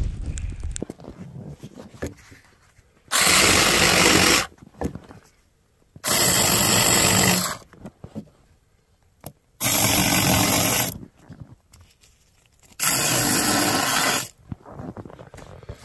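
Small chainsaw cutting firewood in short bursts: four runs of about a second and a half each, roughly three seconds apart, stopping fully in between.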